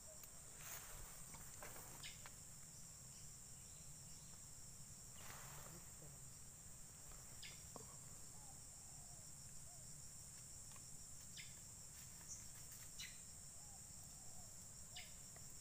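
Faint, steady high-pitched insect drone, with a few short clicks scattered through.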